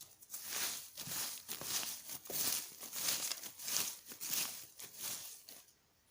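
Paper being torn in a series of short rips, about eight or nine at an even pace of roughly one and a half a second, stopping shortly before the end.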